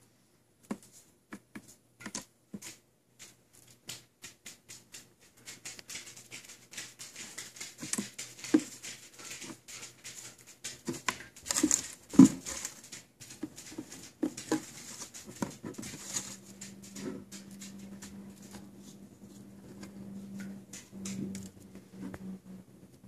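Irregular light clicking and tapping of pets' claws on a tile floor, quickening and growing louder in the middle. A steady low hum comes in about two-thirds of the way through.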